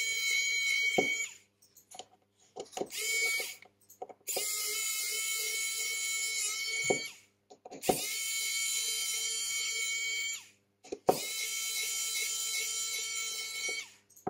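Electric precision screwdriver whirring with a high whine in repeated runs, most about three seconds long, with short pauses between, as it turns the small screws on a smartphone's inner plate.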